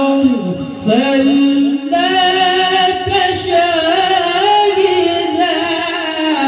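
A male qari reciting Quran verses in the melodic tilawah style. He holds long notes ornamented with quick wavering turns and slides in pitch, with brief breaths between phrases.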